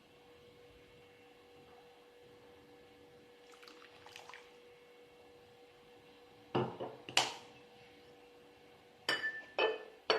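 Kitchenware clinking and knocking during cooking: soft clinks about four seconds in, two sharp knocks about six and a half to seven seconds in, then three more knocks near the end, over a faint steady hum.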